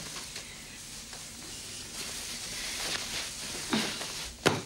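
Rustling of pillows and bedclothes as a bedridden patient is lifted forward and his pillows are rearranged behind him, with two soft thumps near the end as the pillows are patted into place.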